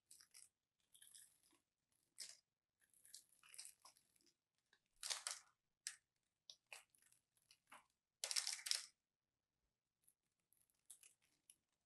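A small blade cutting cubes from a scored bar of dry, crunchy soap: crisp crackling and scraping in short bursts with silent gaps, the loudest about halfway and about two-thirds through.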